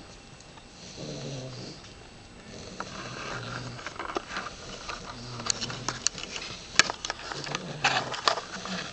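Two English bulldog puppies snoring: low rasping snores about every two seconds, with a scatter of sharp clicks and snorts in the second half, the loudest near the end.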